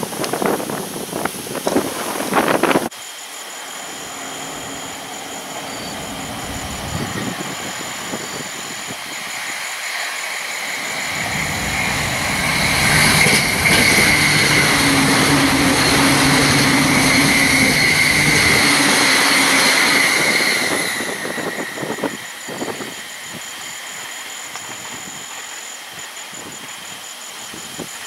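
Wind buffeting the microphone, then an electric passenger train on the Joban Line approaches, passes for about eight seconds with a steady high tone over its running noise, and fades away. Wind gusts return near the end.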